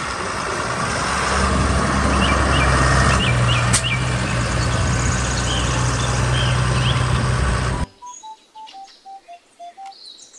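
Large Fendt farm tractor's diesel engine running as it drives, its low note growing stronger about a second in, with birds chirping over it. The engine sound cuts off sharply about eight seconds in and a faint run of short beeps, stepping down in pitch, follows.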